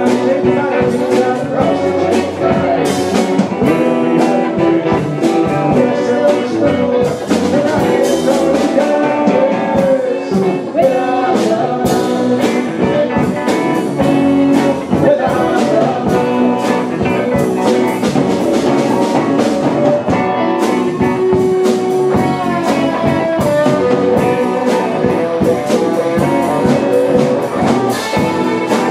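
Live rock band playing a song: electric guitars and drum kit, amplified in a club.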